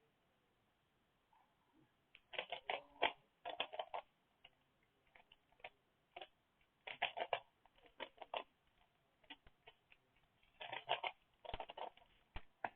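A 3x3 Rubik's Cube being turned fast: faint runs of quick plastic clicks and clacks as its layers rotate, in three bursts of rapid turns with short pauses and a few single clicks between.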